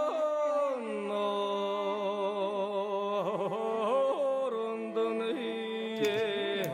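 Slow music: long held notes that glide and waver, over a lower sustained note.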